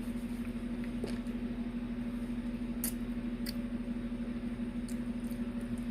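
Steady low hum with a few faint, soft clicks.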